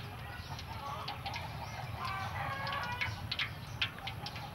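Chickens clucking, a string of short repeated calls throughout.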